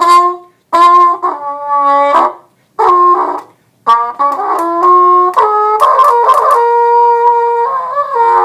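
Trumpet played with a cup mute in the bell: a few short phrases of notes broken by brief pauses, then a longer run of notes through the second half.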